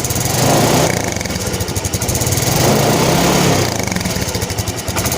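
Motorcycle engine revving through an exhaust fitted with a homemade insert of folded can tin and cardboard, meant to give a deeper "mber" racing-exhaust note. The throttle is blipped in repeated swells about every two seconds.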